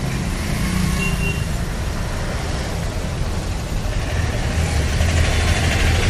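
Mixed street traffic of cars, motorcycles and auto-rickshaws: a steady low rumble of engines and tyres that grows louder over the last second or two as vehicles pass close.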